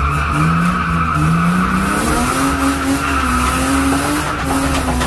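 Car drifting, heard from inside the cabin: the tyres squeal in a steady screech while the engine revs climb over the first couple of seconds and then hold high.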